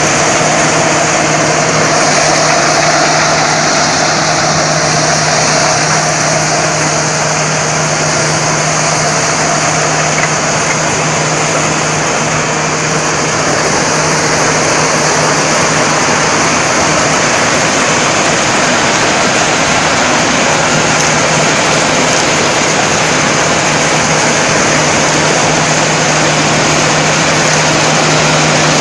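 Corn harvesting machine running steadily at a constant loud drone, its engine hum with the rushing noise of the machinery working.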